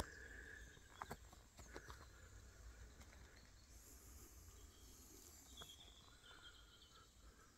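Near silence: faint outdoor ambience with a low rumble, a few soft clicks near the start and a few faint high chirps.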